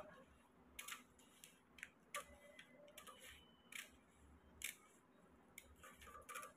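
Small scissors snipping through folded notebook paper: a series of short, faint snips, about one a second.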